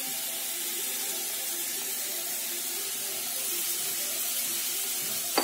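Grated bottle gourd sizzling steadily in hot ghee in a non-stick pan, just tipped in and starting to fry. A short sharp click right at the end.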